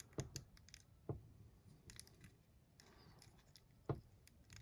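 Faint scattered clicks and light knocks of fingers handling a NECA Alf plastic action figure, working its head and jaw; the clearest knocks come about a second in and near the end.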